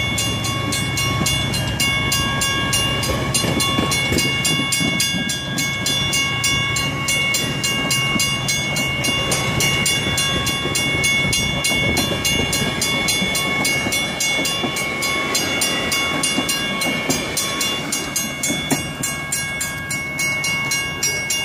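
Metra bilevel passenger cars rolling past at close range, their wheels running on the rails with several steady high-pitched ringing tones over the rumble. A deeper low rumble fades out over the first several seconds, and the sound eases slightly near the end as the rear cab car passes.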